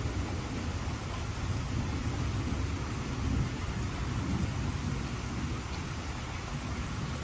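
Steady rain falling, with a continuous low rumble underneath.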